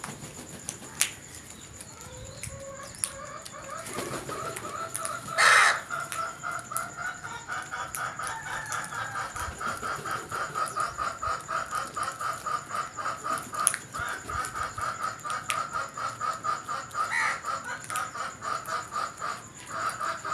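A bird calling in a fast, steady run of short repeated notes, several a second, for most of the stretch, with one loud harsh call about five seconds in.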